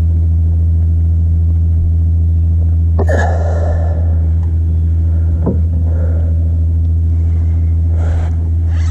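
Boat motor running at a steady, unchanging speed with a low hum. There is a short knock about 3 seconds in and another about 5.5 seconds in.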